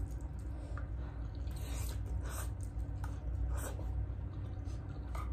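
People chewing and eating rice at speed, with scattered short mouth and utensil clicks over a steady low hum.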